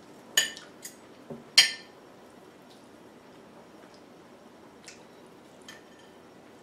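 Metal fork clinking against a ceramic dinner plate: two sharp ringing clinks within the first two seconds, then a few fainter taps.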